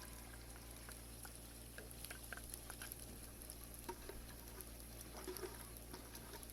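Green chillies and garlic frying in ghee in a pan, a faint crackle with scattered small pops and clicks over a steady low hum.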